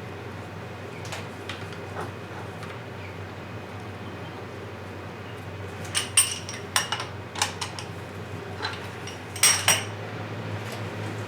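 Pieces of metal clinking and knocking together: a few sharp, ringing clinks about halfway through and a louder pair near the end, over a steady low machine hum.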